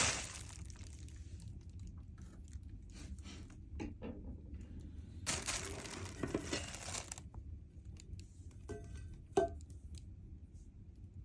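Crisp pani puri shells crunching while being eaten close to the microphone: one burst at the start, a longer stretch of crunching about five seconds in, and a few sharp clicks near the end.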